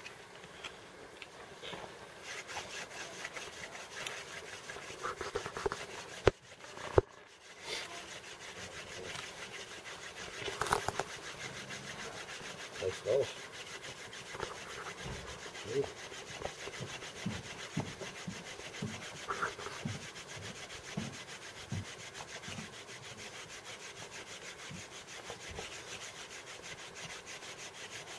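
Wood rubbing against wood in repeated strokes as a hand-worked friction fire set is driven to make an ember. Two sharp knocks about six and seven seconds in.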